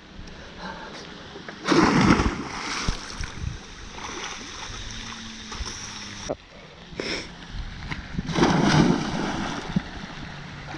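A person jumping off a wooden dock into a pond: a loud splash about two seconds in and another near eight and a half seconds, with smaller water splashes from swimming between.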